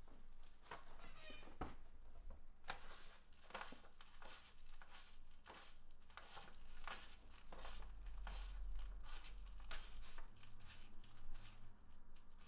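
Sheets of paper rustling and crinkling in a person's hands, a quick irregular run of crackles over a low steady room hum.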